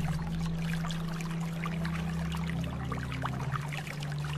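Steady rain with scattered drops pattering, over a low sustained music drone whose held note shifts partway through.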